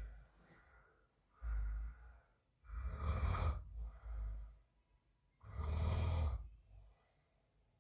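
A man snoring in his sleep: a string of noisy snoring breaths about every one to two seconds, the loudest a few seconds in and again about six seconds in, then a short pause near the end.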